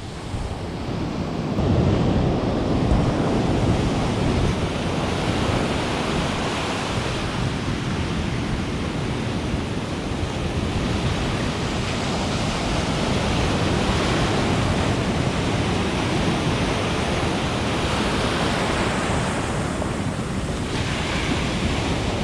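Ocean surf washing onto the beach, steady throughout and swelling a little about two seconds in, with wind buffeting the microphone.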